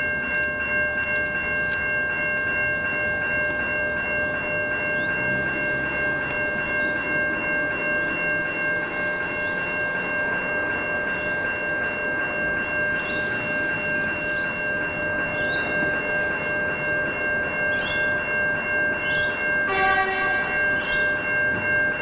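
Level crossing electronic bell ringing continuously with a steady, pulsing ring while a suburban electric train runs through the crossing. The train's horn sounds briefly about twenty seconds in.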